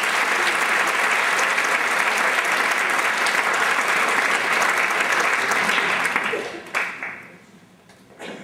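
Audience applauding steadily, the clapping dying away about six to seven seconds in, with a few last stray claps.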